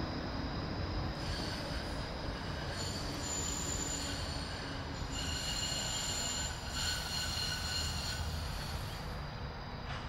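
High-pitched squealing tones, several at once, sounding over a steady low rumble. They set in about a second in, change partway through and fade near the end.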